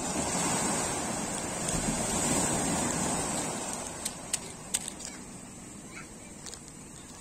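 Surf washing onto a sandy beach, a wave's rush swelling over the first few seconds and then fading away. A few sharp clicks sound about four to five seconds in.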